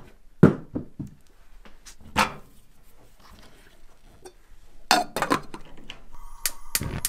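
Whole potatoes knocking into a stainless steel saucepan with a silicone steamer basket, a few separate knocks, then a glass lid clattering onto the pot about five seconds in. A faint steady tone starts near the end.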